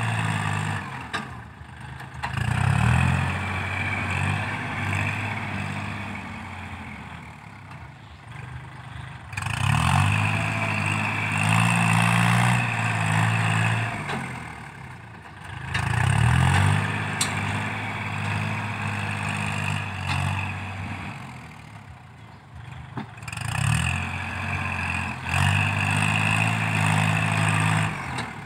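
Kubota L4018 tractor's diesel engine working under load as its front blade pushes soil. It rises in loudness and pitch, then eases off, in a cycle about every six to seven seconds.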